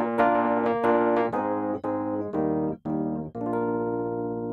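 Background piano music: a run of struck notes, ending about three seconds in on a held chord that slowly fades.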